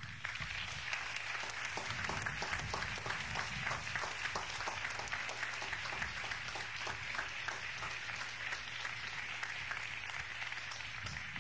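Audience applauding a speaker's introduction: a dense, steady patter of many hands clapping.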